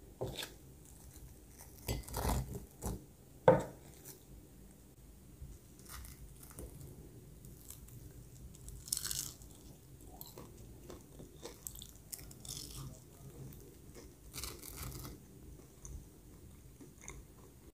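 A few separate crunches with quieter chewing between them, as a crisp breadcrumb-coated chicken donut is bitten into and eaten.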